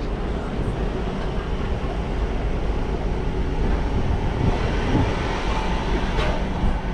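Wind buffeting the microphone: a steady, dense low rumble with no clear pitch.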